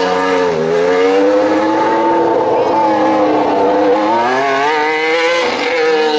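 Mercedes Formula 1 car's 1.6-litre turbocharged V6 hybrid engine being revved hard with its rear tyres spinning. The pitch dips about half a second in, climbs, sags again at about three and a half seconds, rises to its highest at about five and a half seconds, then falls away.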